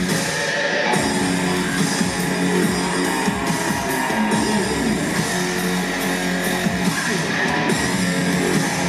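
Loud heavy-metal rock music led by distorted electric guitar, with notes sliding up and down over a steady beat.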